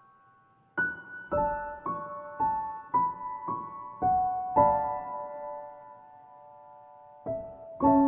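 Background piano music: a slow melody of single struck notes about half a second apart, each ringing out and fading, with one note left to ring for a few seconds before the melody goes on.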